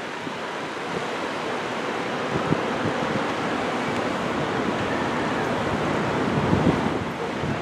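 Steady rushing noise with a few faint low thumps.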